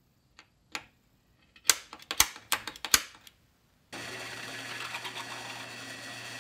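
Sharp snapping clicks of an automatic center punch marking hole locations on an aluminum bracket, a few at first and then a quick cluster of loud ones. About four seconds in, a drill press is running steadily with a constant hum, its bit cutting into the aluminum bracket.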